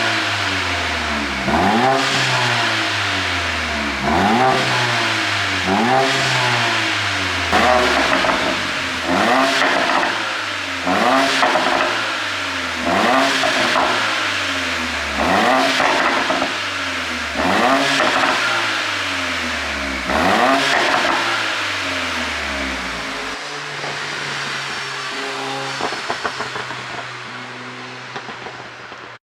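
Mercedes-AMG CLA45's turbocharged four-cylinder engine blipped to high revs about once every two seconds, with exhaust pops and crackles as each rev falls away, from a pop-and-crackle ECU tune. It then settles to a steady idle, with a last few crackles near the end.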